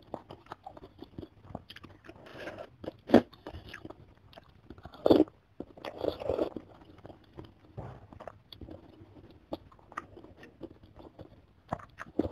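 Close-miked mouth sounds of eating glass-noodle chicken soup: wet chewing with many small clicks and smacks, and slurps of noodles and broth, the loudest about 3, 5 and 6 seconds in.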